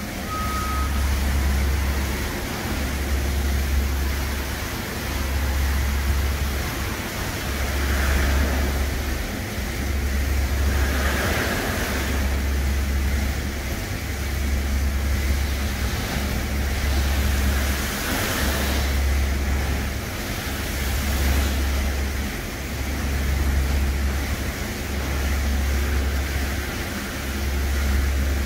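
Brush gantry truck wash running: a steady hiss of water spray with a low hum that swells about every two seconds.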